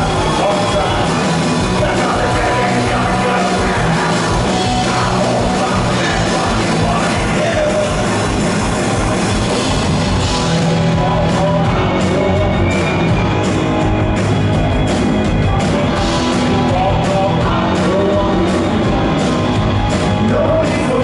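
Rock band playing live at full volume: drums, bass, guitar and keyboards with a singer's voice, as heard from the crowd.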